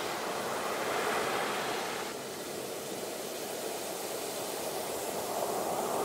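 Ocean surf washing onto a beach, a steady hiss of breaking waves that eases slightly about two seconds in and builds again toward the end.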